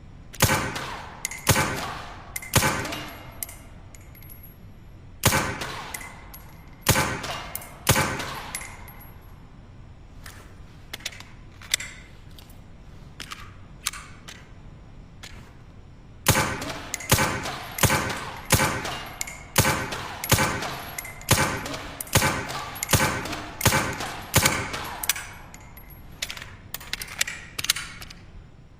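Suppressed pistol shots: sharp muffled cracks, each with a short ringing tail, first in two groups of about three, then fainter clicks, then a long evenly spaced string of shots a little over one a second through the second half.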